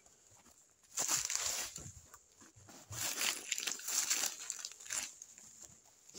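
Footsteps crunching and rustling through dry brush and forest-floor litter, in uneven bursts starting about a second in.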